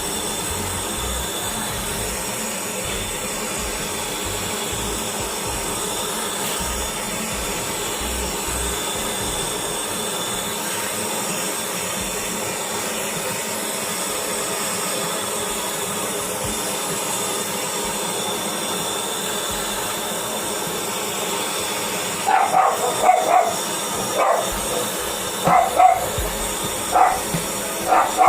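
A dog barking in short bursts, several times over the last six seconds, against a steady hiss.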